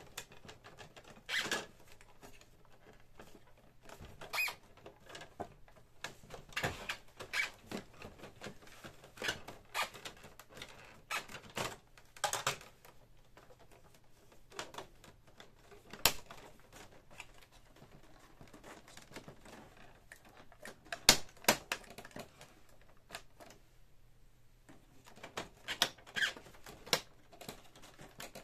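Plastic housing of a Canon PIXMA MP-series printer being handled and pried apart by hand: irregular clicks, snaps and knocks of plastic parts, with a few louder knocks, the sharpest about two-thirds of the way through.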